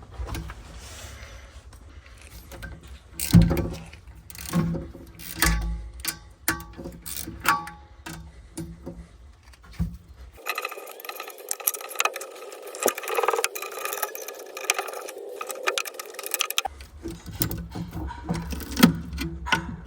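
Small hand ratchet clicking and metal tools knocking and clinking while nuts are undone on a gas boiler's burner plate, in irregular clicks and knocks. For several seconds in the middle the low background hum drops out.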